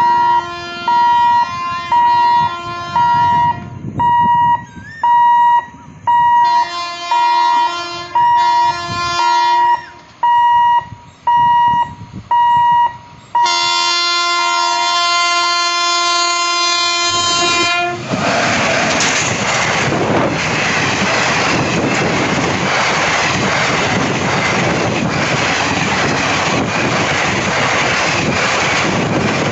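Electric locomotive's horn sounding as an express train approaches a level crossing: short hoots about once a second, then one long blast of about four seconds. The train then passes close by with a loud, steady rushing and rattling of coaches on the track.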